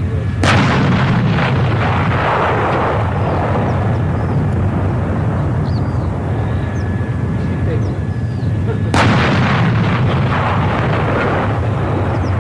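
PzH 2000 155 mm self-propelled howitzer firing twice, about eight and a half seconds apart: each shot is a sharp crack followed by a long rolling echo that dies away over a few seconds.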